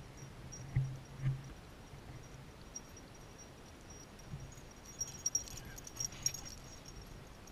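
Quiet outdoor air with two short low thumps about a second in, then a greyhound running past close by: a quick cluster of light clicks and clinks from its collar and footfalls.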